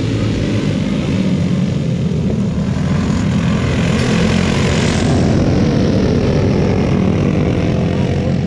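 A pack of racing go-kart engines running hard around a dirt oval, several engines overlapping in a steady drone. It swells and brightens about four to five seconds in as the karts pass close by.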